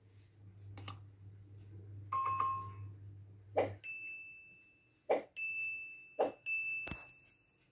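Mouse-click sound effects, about five of them, with a bell-like chime about two seconds in and a steady high tone through the second half.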